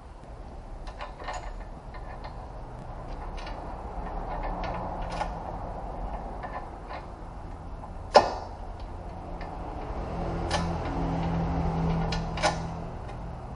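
Irregular clicks and clinks of hand tools and metal parts being handled under a car, with one sharper clink about eight seconds in. A low hum rises briefly near the end.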